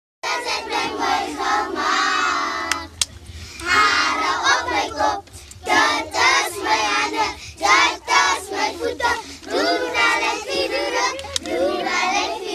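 A group of children singing a song together, with a steady low hum beneath.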